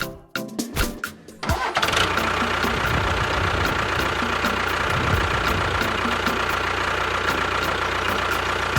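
An engine sound starting up: a few separate clicks or cranks, then, about a second and a half in, the engine catches and runs steadily.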